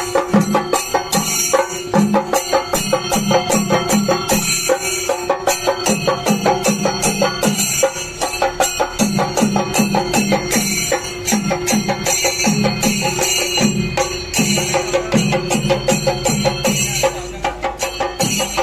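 Loud festival music with fast, densely packed percussion beats over a steady held tone.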